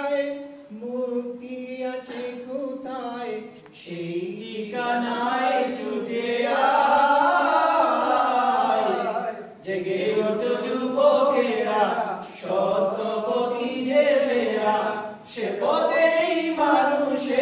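A group of men singing a Bengali Islamic song together through microphones, unaccompanied, in long phrases with short pauses between.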